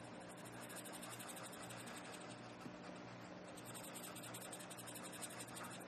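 Prismacolor marker tip rubbing faintly across colouring-book paper as a berry is coloured in, over a low steady hum.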